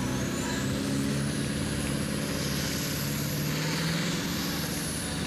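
Diesel engine of a farm-pulling tractor at full load, dragging the weight-transfer sled. A steady, loud engine note whose pitch creeps up slightly partway through, with a thin high whine above it.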